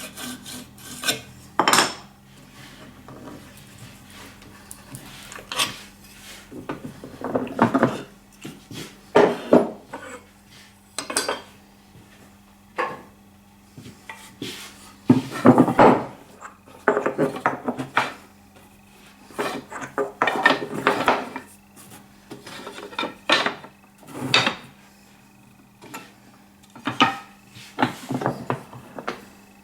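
A scraper plane's steel blade being sharpened: irregular short scraping strokes of metal on metal, mixed with clinks as steel parts are handled.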